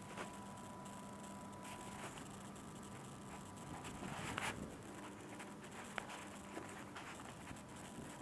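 Faint indoor room tone: a steady high hum with scattered light clicks, and a brief louder rustle about four seconds in.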